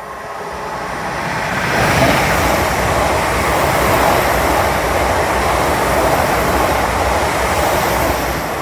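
Twelve-coach London Northwestern Railway Class 350 Desiro electric multiple unit passing through a station at speed without stopping. Its wheels on the rails and rushing air build to a steady loud rumble about two seconds in, then ease near the end as the last coaches go by.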